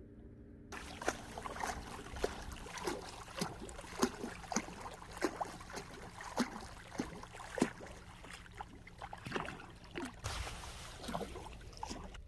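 Seawater lapping and sloshing with many small irregular splashes and drip-like plops over a steady wash.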